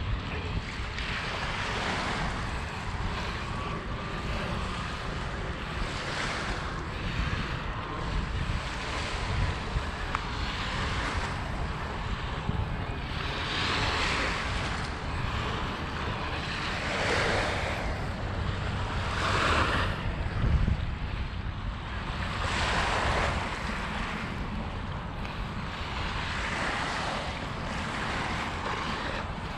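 Lake Michigan waves washing onto the beach, swelling and fading every few seconds, over a steady rumble of wind on the microphone.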